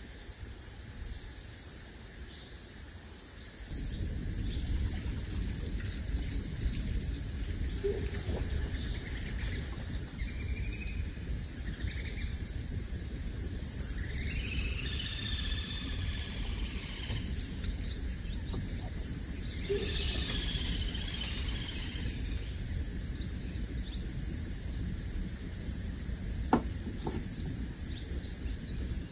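Insects shrilling steadily with regular short chirps, a few bird calls around the middle, and a low background rumble from about four seconds in.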